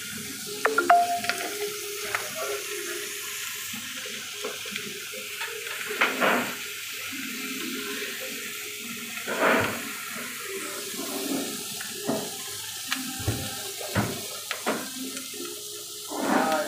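Steady hiss of a cast-iron sizzler plate heating over an open gas burner, broken by a dozen or so sharp metal clinks and knocks as a knife blade is worked against the plate, with a few louder swells of hissing.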